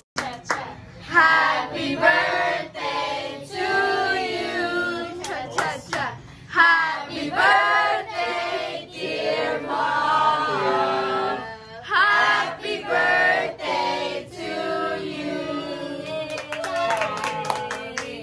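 A small group of women singing a birthday song together, unaccompanied, in drawn-out sung phrases, with a few claps.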